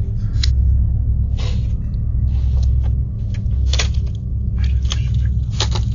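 Doorbell camera's microphone audio: a steady low rumble with several short, sharp rustles and scrapes, the sound of a delivery package being ripped open and handled.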